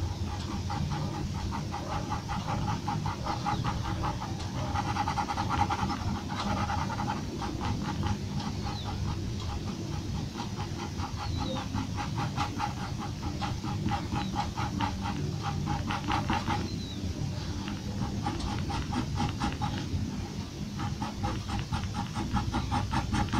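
Graphite pencil scratching on paper in quick, even hatching strokes, several a second, with short pauses about two-thirds of the way through.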